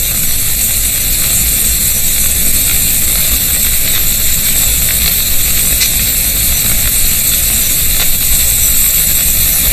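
A huge swarm of bats streaming through a cave passage, their wings and calls blending into a dense, steady hiss.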